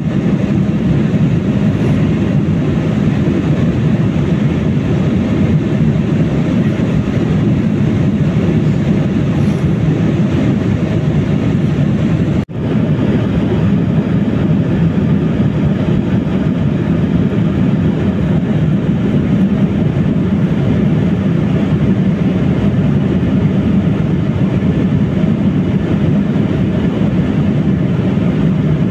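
Steady cabin noise inside an Embraer E195-E2 in flight: the low hum of its Pratt & Whitney PW1900G geared turbofan engines mixed with the rush of air along the fuselage, heard from a window seat over the wing. It breaks off for a split second about twelve seconds in.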